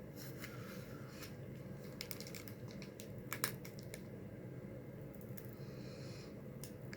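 Eating a taco close to the microphone: scattered short crunches and clicks of chewing, irregularly spaced, over a steady low hum.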